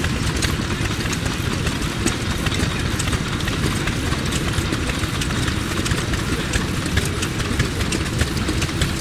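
Yoshida Type D 2.5 hp single-cylinder stationary engine running steadily, belt-driving a straw rope making machine whose mechanism runs along with it in a continuous rapid clicking clatter.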